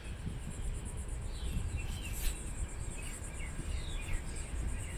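Steady high-pitched insect trilling, cricket-like, with a few short falling bird chirps and a constant low rumble underneath.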